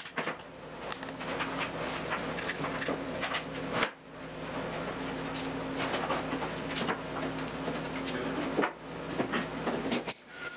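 Wooden ribs and MDF boards knocking, clattering and sliding as they are handled and fitted together, over a steady low hum. The sound breaks off abruptly twice, about four seconds in and again near nine seconds.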